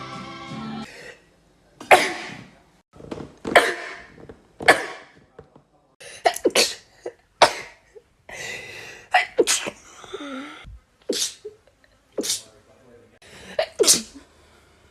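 A run of human sneezes, about ten sharp ones one after another with short pauses between, a few coming in quick pairs.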